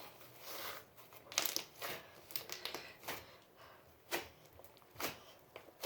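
Crunchy slime being stretched and squeezed by hand, giving irregular crackles and pops several times a second.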